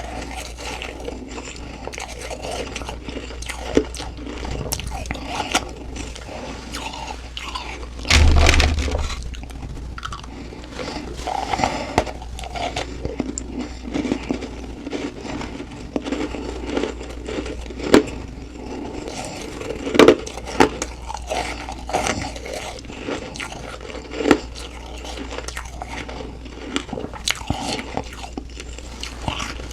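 Close-up crunching of humidifier frost ice being bitten and chewed, with many crisp crackles one after another. A loud low thump about eight seconds in.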